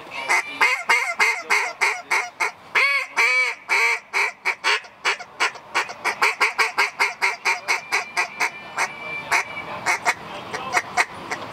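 J.J. Lares T1 duck call blown by a championship caller: a fast run of short, pitched duck-call notes, about five a second, broken by a couple of longer rising-and-falling notes about three seconds in and one held note near the end.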